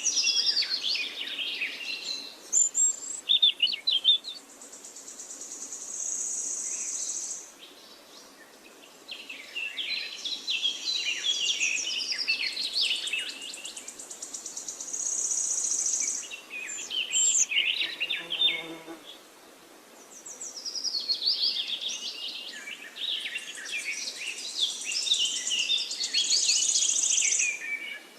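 A songbird singing long, rapid, jumbled phrases, each ending in a high buzzy trill, three times with short pauses between, over a faint steady rush of flowing water.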